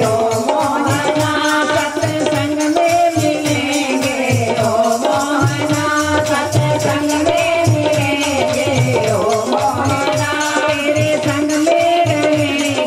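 Devotional Hindi bhajan music: tabla and a shaken rattle keep a steady beat under a sustained melody.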